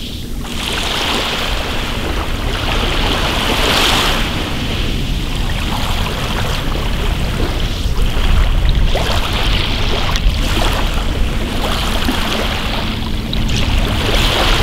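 Small sea waves breaking and washing up over a pebble beach, a hissing wash of water through the shingle surging in every few seconds.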